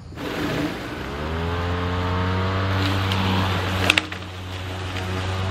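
EGO 21-inch self-propelled electric lawnmower's blade motor starting: a rising whine as it spins up over about a second, then a steady hum at full speed, showing the mower runs again now that its broken handle-switch wiring is bypassed with a jumper. Two sharp clicks about four seconds in.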